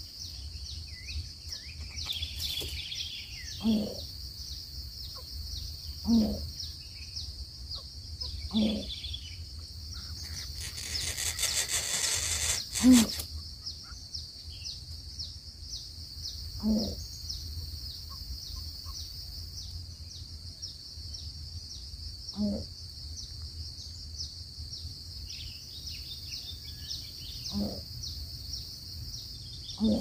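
Greater coucal giving single deep hooting notes, one every three to six seconds, over a steady high-pitched drone. Near the middle a noisy rush lasts about two and a half seconds.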